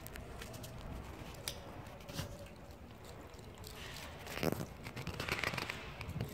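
Cat eating meat scraps: a run of small wet chewing and licking clicks, with a louder noisy patch about four and a half seconds in.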